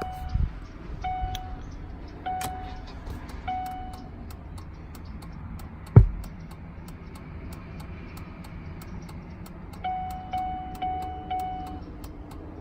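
Dashboard chime of a 2003 Chevrolet Suburban sounding in a repeating pattern while a new flasher module is tested: evenly spaced dings about a second and a quarter apart, a pause, then four quicker dings near the end. One sharp knock about halfway through.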